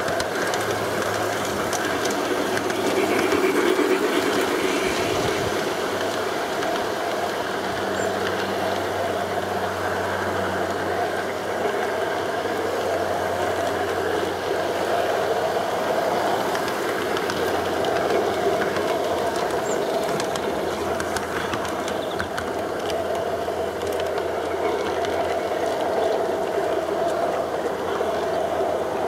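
G-scale model diesel locomotive running steadily along garden track with a freight train: a steady motor-and-gear whir with faint clicks from the wheels on the rails.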